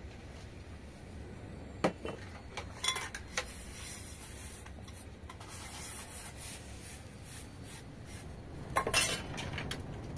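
Small glass tea glasses clinking against each other and a metal bowl as they are washed by hand in a basin of water. There are a few sharp clinks about two to three and a half seconds in, and a louder run of clinks near the end.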